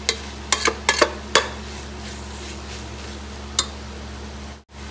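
A steel spoon stirring sautéing onions and masala in a metal pot, knocking and scraping against the pot several times in the first second and a half and once more later, over a faint steady sizzle. The sound cuts out briefly near the end.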